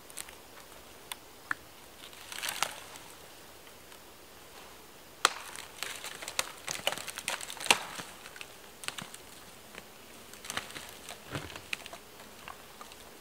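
Dry branches and twigs of a fallen dead pine snapping and crackling as the trunk is lifted and dragged over the forest floor. The cracks come in two busy runs, with a brief rustle of footsteps before them.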